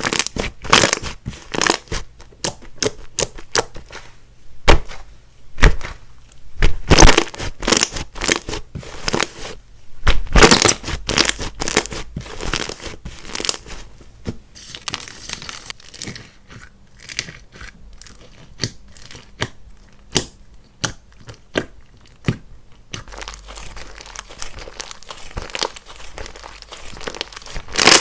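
Clay-mixed slime being squished, pressed and stretched by hand, giving off many sharp sticky clicks and pops in bunches with quieter stretches between.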